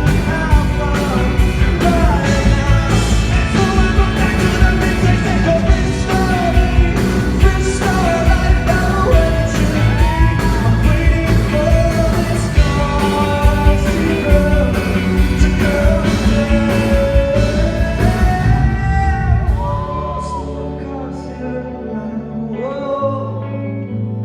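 Live rock band playing with a male lead voice singing over it, drums keeping a steady beat. About twenty seconds in the drums and full band drop away, leaving quieter held chords under the voice.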